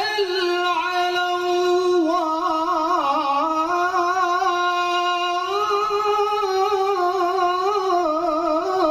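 A male qori reciting the Qur'an in melodic tilawah style, one unbroken voice holding long notes and breaking into quick wavering ornaments as the melody rises and falls.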